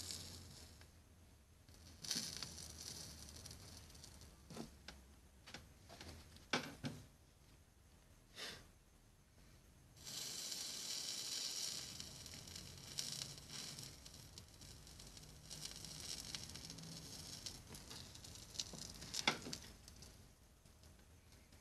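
Soldering flux sizzling and crackling under a hot soldering iron as solder wire is melted onto the piece. A few scattered light ticks come first, then a steady faint hiss with crackles sets in about ten seconds in.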